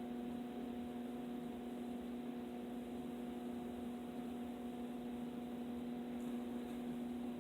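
A steady electrical hum, several even tones held without change over a faint hiss.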